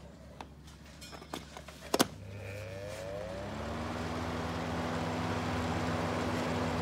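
Vintage Mistral exhaust fan switched on with a sharp click about two seconds in; its electric motor spins up with a rising whine, then settles into a steady hum while the rush of air keeps growing louder.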